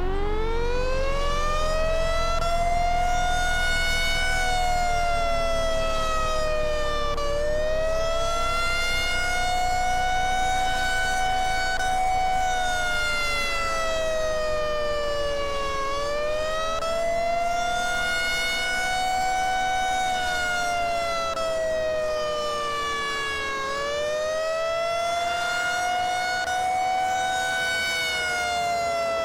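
Federal Signal 500AT outdoor warning siren sounding a wavering signal. Its pitch climbs, holds, then sags and climbs again about every eight seconds, never winding far down. This is the attack (wail) signal, which the uploader calls a failed attack test.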